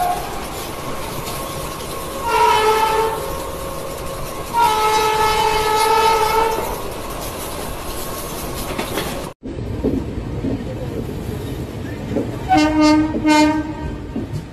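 Indian Railways train running on the rails, with two locomotive horn blasts: a short one about two seconds in and a longer one of about two seconds soon after. The sound breaks off abruptly about nine seconds in. A different train's running noise follows, with two short horn blasts in quick succession near the end.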